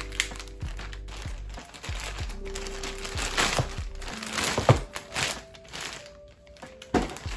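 Plastic poly mailer bag crinkling and rustling as it is torn open and pulled apart by hand, loudest in a cluster of crackles about halfway through. Soft background music with sustained notes plays under it.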